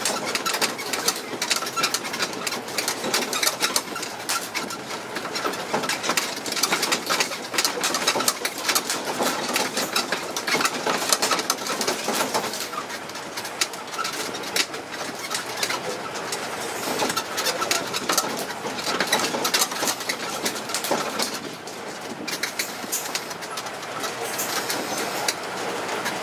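Open carriage of a tourist mini road train rattling and creaking as it runs along a street: a dense, continuous clatter of small knocks over running noise.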